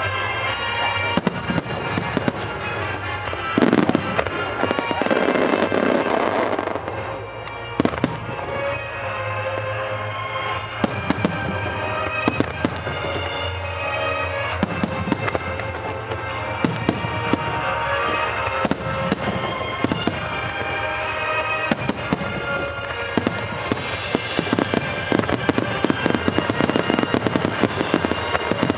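Fireworks exploring a dense display: sharp bangs throughout, a big sustained burst about four to seven seconds in, and a rapid crackling volley near the end. Music with held tones plays underneath.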